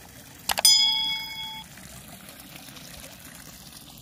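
Two quick clicks about half a second in, then a bell chime that rings for about a second and fades: the sound effect of a subscribe-button and notification-bell animation.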